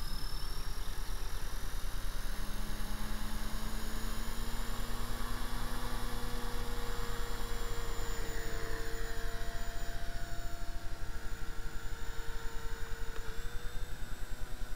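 Electric RC helicopter's brushless motor and rotor spooling up, a whine that rises slowly in pitch, the helicopter lifting off near the end. A steady electrical buzz runs underneath.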